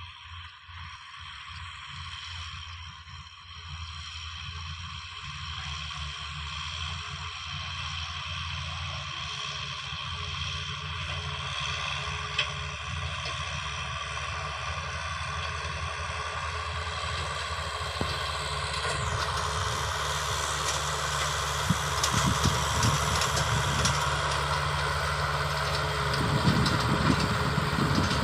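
Farm machine's diesel engine running steadily and growing gradually louder as it draws nearer, with irregular knocks and rattles in the last few seconds.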